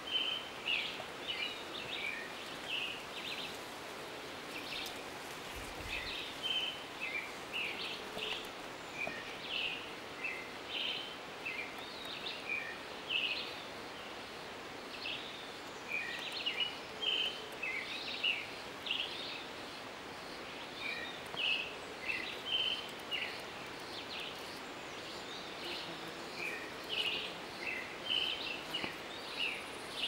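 Small birds chirping: many short, high notes coming in irregular clusters every second or two, over a steady faint outdoor hiss.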